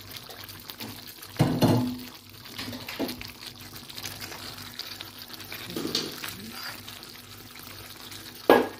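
Chicken afritada in tomato sauce simmering in a frying pan, a steady bubbling of the sauce. Brief louder sounds about a second and a half in, and a sharp knock near the end.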